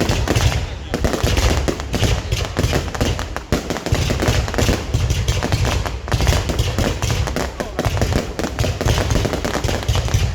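Fireworks going off in a dense, unbroken string of overlapping bangs and crackles.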